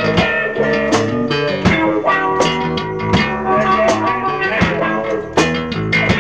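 Rock band music with guitar and drum kit, a drum hit about every three-quarters of a second under a steady guitar line.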